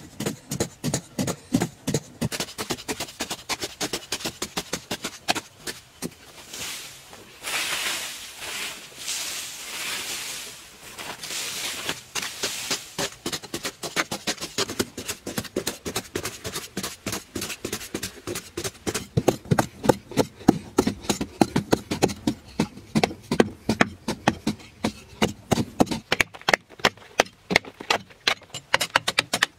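Short-handled digging tools chopping into hard red earth, a few sharp strikes a second from two diggers working at once. About a third of the way in there are a few seconds of scraping soil.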